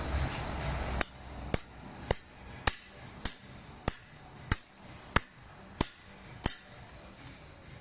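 Hammer blows knocking apart a wooden shipping frame: about ten sharp, evenly spaced strikes, a little under two a second, each with a brief ring, starting about a second in and stopping about two-thirds of the way through.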